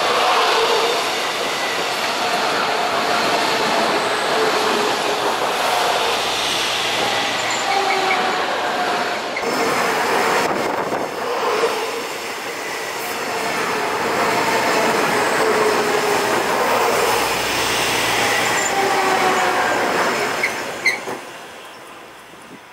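Taiwan Railways EMU500-series electric multiple unit pulling into the station, its running noise carrying several falling whines as it slows. About 21 s in come a couple of sharp clicks, and the noise dies away as the train stops.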